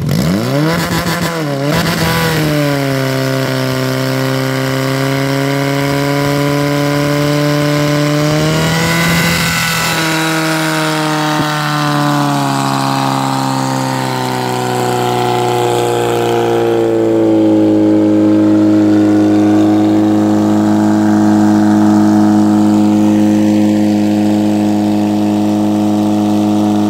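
Portable fire pump's engine run at full throttle: it revs up sharply at the start, wavers in pitch around the middle, then holds a steady high-speed run while driving water out through the hoses.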